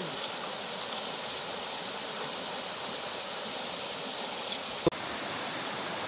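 Shallow stream rushing over stones, a steady even rush of water. A brief sharp click sounds about five seconds in.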